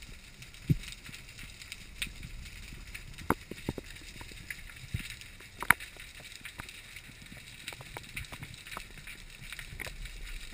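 Underwater ambience picked up through a camera housing: a steady hiss with scattered irregular clicks and knocks, one sharper knock a little past the middle.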